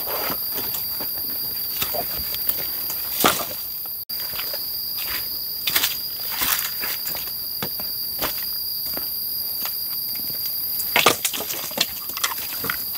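Insects drone in the forest with a steady high tone. Over it come irregular crunches and rustles of footsteps on dry leaves and sticks, with a cluster of louder crunches about eleven seconds in.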